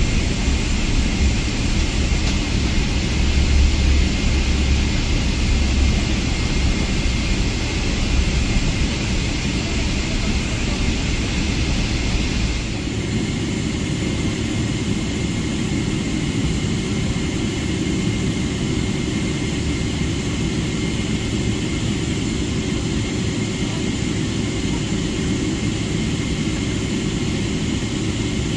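Boeing 777-300ER's GE90-115B turbofans running at low taxi thrust, heard from the cabin by the wing as a steady engine rush. Partway through, the deep rumble drops away and the sound settles lower and even.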